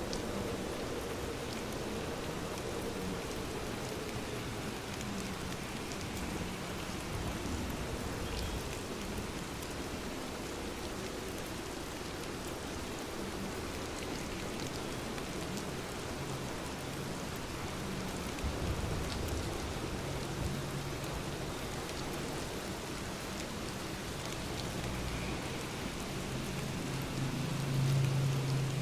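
Steady rain falling, an even hiss with scattered drop ticks. A low rumble of thunder builds near the end.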